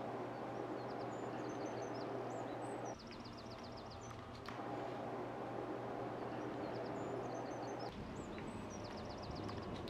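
Outdoor street ambience: a steady low hum and hiss with small birds chirping now and then, including two quick trills of short notes.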